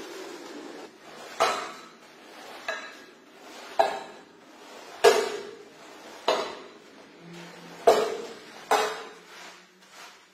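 A rotary floor scrubber running steadily for about the first second. Then a squeegee is pushed in strokes across a soaked, foamy shag rug: seven sharp knocks, about one every second or so, each fading over about half a second.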